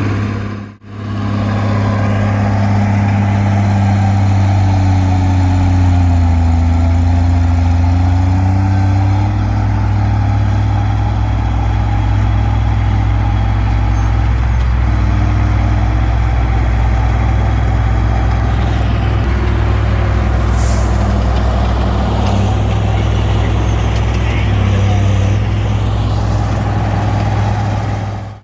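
Diesel engine of a Komatsu D20P bulldozer running steadily under load, with a brief drop-out about a second in.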